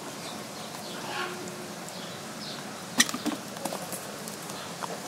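Ring-tailed lemurs giving a couple of faint short calls, then a sharp click about three seconds in followed by a few softer clicks.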